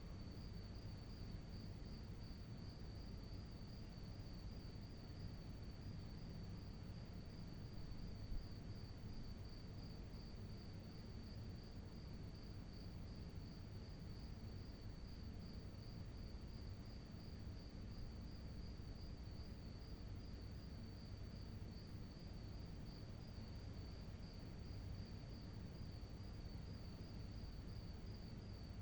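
Crickets chirping: a faint, steady, evenly pulsing high trill that never stops, over a low background rumble.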